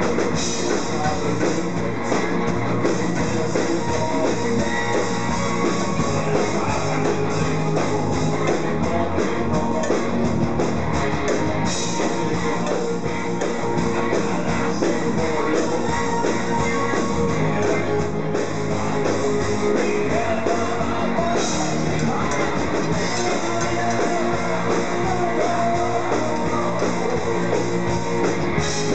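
Live rock band playing loudly through a PA in a small room: electric guitars and drums, steady throughout.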